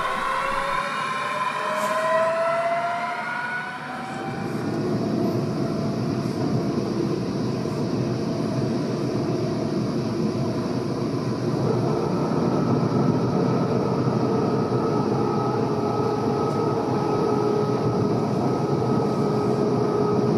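DB Class 423 S-Bahn electric train pulling away, its traction motors whining in several tones that rise in pitch. After about four seconds this gives way to the steady rumble of wheels on rails heard from aboard a moving train, with a steady hum running through it.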